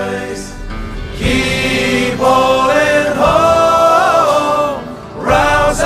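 Background music: a sea-shanty-style song with choir-like sung vocals, holding one long note in the middle.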